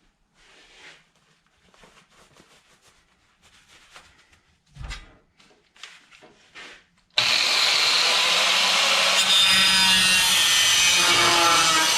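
Faint scraping and handling of a steel plate with one thump, then about seven seconds in a power tool starts abruptly and runs steadily, loud, cutting the plate.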